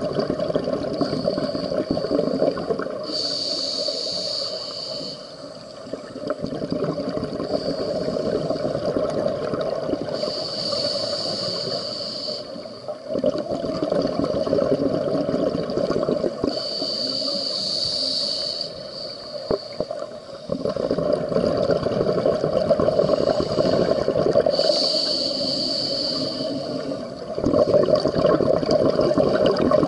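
Scuba diver breathing through a regulator, heard underwater: four breaths, each a short hiss on the inhale alternating with longer bubbling of exhaled air.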